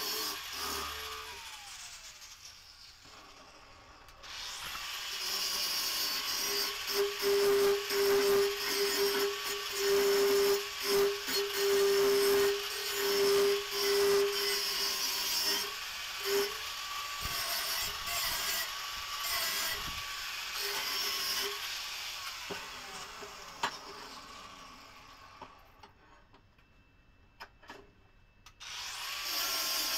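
Handheld angle grinder grinding the spring-steel blade, its motor whine wavering as the disc bites. It spins down at the start, starts up again about four seconds in, and grinds steadily. It winds down with a quiet gap near the end, then starts up again just before the end.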